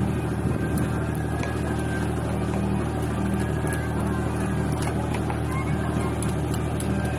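Steady low drone of an idling engine, with faint clicks and scrapes of a knife gutting a gilthead sea bream on a tabletop.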